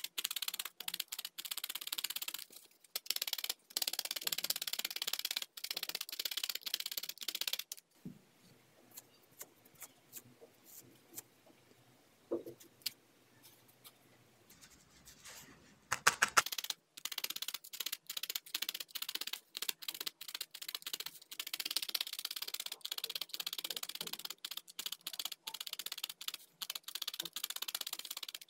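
A barbed felting needle stabbing rapidly and repeatedly through loose wool roving into a foam pad, quick even strokes that firm the fibres into a flat felt shape. The stabbing stops for about eight seconds in the middle, then starts again with a sharp knock.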